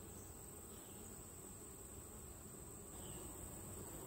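Faint, steady high-pitched insect trill over the low buzzing of honey bees around an opened hive.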